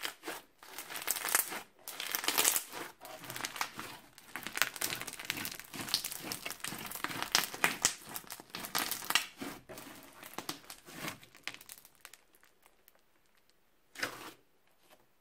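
Bead-filled crunchy slime being squeezed and kneaded by hand, giving dense crinkling and crackling. The crackling dies away about twelve seconds in, and one short crackle follows near the end as a hand presses the slime flat.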